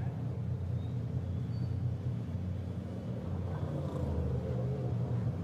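LMP3 prototype's V8 engine running at low revs down the pit lane, a steady low rumble.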